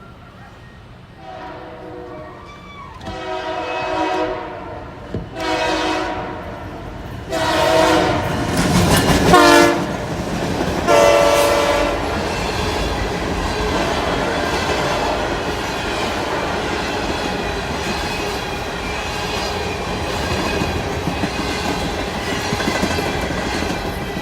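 Diesel locomotive horn on a New York and Atlantic Railway train led by PR20 units, sounding a chord in five separate blasts; the fourth is the longest and loudest. After the horn stops, the train rolls past with a steady rumble and the clickety-clack of wheels on rail joints.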